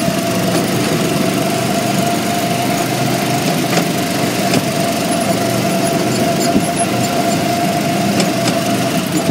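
Go-kart engines running steadily, heard from the seat of a moving kart on the track, with a constant high whine over the engine noise.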